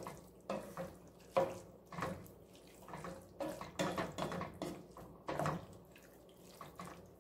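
Spatula stirring a saucy ground-beef and vegetable mixture in a stainless steel skillet: wet, squelching scrapes in irregular strokes about twice a second, thinning out near the end.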